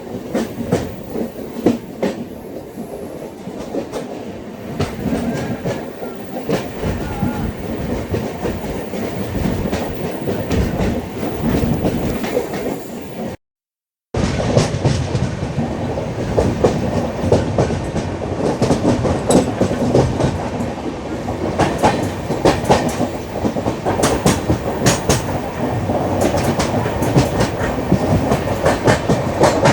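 LHB passenger coaches running on the track: a steady rumble with rapid clicking of wheels over the rail joints. The sound drops out completely for a moment about halfway through, then resumes a little louder.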